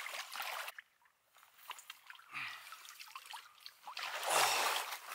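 Shallow river water sloshing and dripping as a wading angler lands a steelhead by hand, with louder sloshes about two seconds in and near the end.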